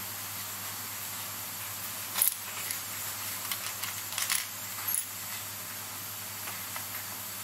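Light clicks and taps of small metal watchmaker's hand tools being picked up and set down on the workbench, the sharpest about two seconds in and a few more around four to five seconds, over a steady background hiss.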